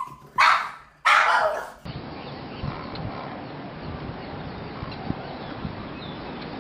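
A dog barks twice, loudly, about a second apart. It then cuts abruptly to a steady background hiss with faint scattered clicks.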